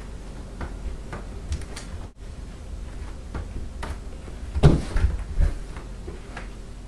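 A small object tossed, batted and caught by hand: a few light knocks and taps, then a louder thud about two-thirds of the way in as a catch is missed.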